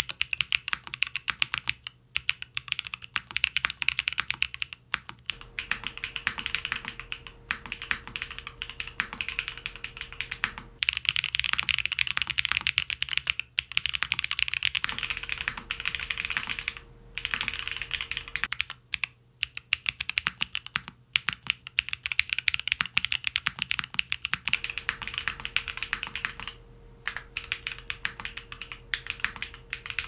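Continuous touch-typing on a Geonworks Frog Mini mechanical keyboard with Geon Clear switches and GMK Hennessey keycaps: a dense, fast run of key clacks, broken by several brief pauses.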